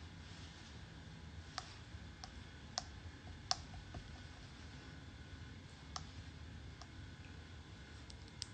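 About eight light, sharp plastic clicks and taps, spaced irregularly, as a small cosmetic tube and its packaging are handled and opened, over a low steady room hum.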